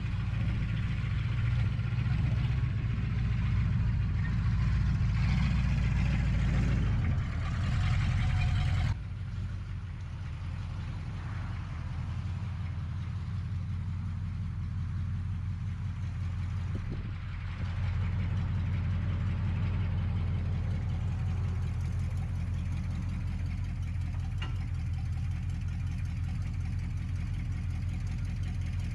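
An engine idling steadily, a low even hum. About nine seconds in, the sound changes abruptly to a slightly quieter, thinner idle.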